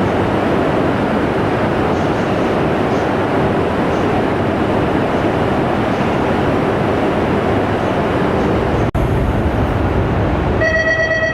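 Shinkansen train moving along an underground station platform, a loud steady rumble and rush of wheels and air. About ten seconds in, a steady electronic platform tone starts over it.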